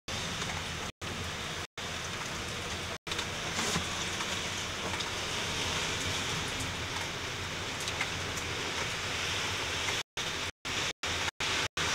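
Heavy rain pouring down in a steady, even hiss. The sound cuts out to silence for split-second gaps three times in the first few seconds, then several times in quick succession near the end.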